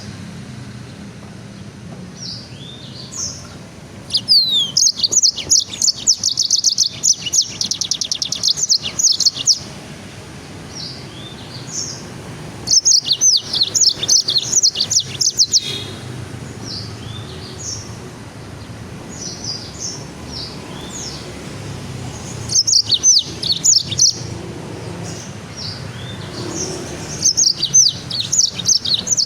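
A caged songbird singing: four loud bursts of rapid, high, chattering trills, with scattered single high chirps between them, over a steady low hum.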